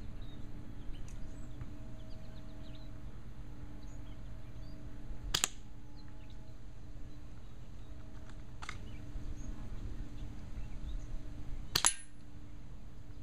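Sharp snaps of airsoft BBs striking at the target, about 5 and 9 seconds in. The last and loudest, near the end, is the water balloon bursting as it is hit. Faint bird chirps underneath.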